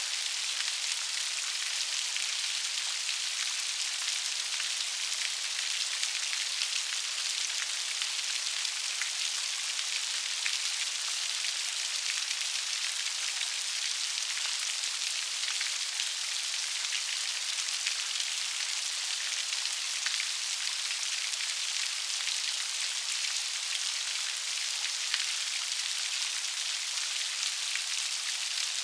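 Steady rain falling, an even hiss of many fine drops pattering on a surface.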